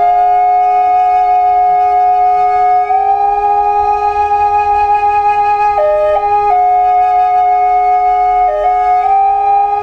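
Wooden multi-bore drone flute playing a slow melody of long held notes over a steady, unchanging drone note. The melody rises gently about three seconds in and dips briefly twice later on.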